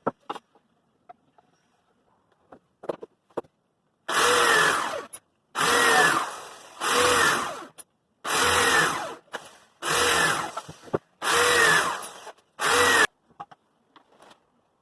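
Electric drill run in about six short bursts, each spinning up and winding down, with small knocks and clicks of handling before and after.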